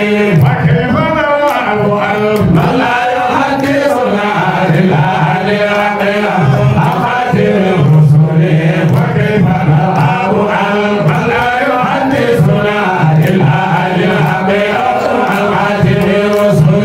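A man's voice chanting Islamic devotional verses in a continuous melodic line, without pause.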